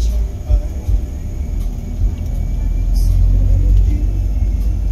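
Steady low rumble of a moving vehicle heard from inside the cabin, with a few light knocks or ticks.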